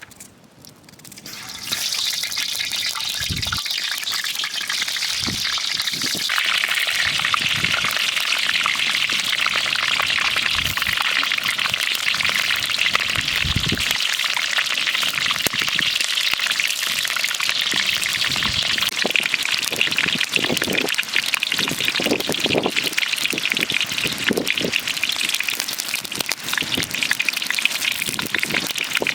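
Heavy rain coming down in a steady hissing downpour, starting suddenly about a second and a half in, with scattered low thuds underneath.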